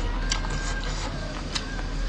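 Close-up eating sounds: chewing, with a few short sharp crunches and clicks, over a steady low hum.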